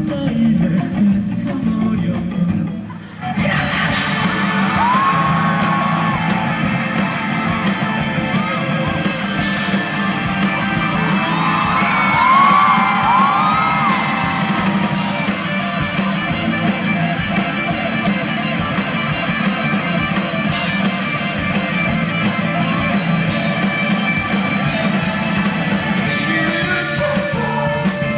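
Rock band playing live with electric guitars through a PA. The music drops out briefly about three seconds in, then the full band comes back, with gliding, bending lines over it.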